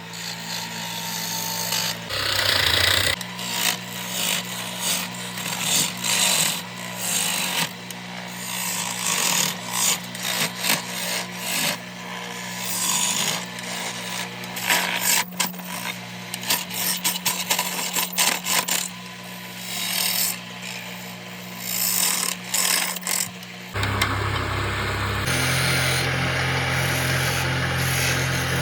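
A power tool carving wood: a steady motor hum under rapid, irregular clatter and scraping as the cutter bites into the wood. About 24 seconds in, the sound changes to a different, steadier, deeper hum.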